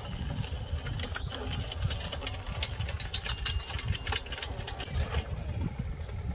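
Small gasoline engine running on a homemade radio-controlled mower as it drives over grass, with scattered sharp clicks and rattles during the first few seconds.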